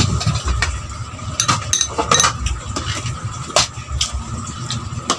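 Metal fork and spoon clinking and scraping against a plate as food is scooped up, several sharp irregular clinks.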